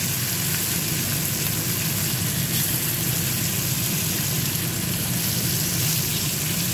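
Amudi fish pieces frying in hot oil in an aluminium kadai: a steady sizzle, over a low steady hum.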